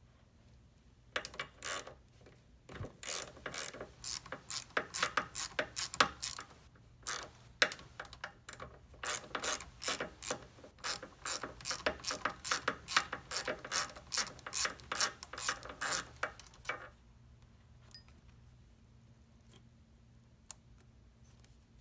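Socket ratchet clicking in rapid runs of strokes as it loosens a bolt on a mini chopper's small engine cylinder head, with short pauses between runs. The clicking stops about three-quarters of the way through, followed by a single sharp click.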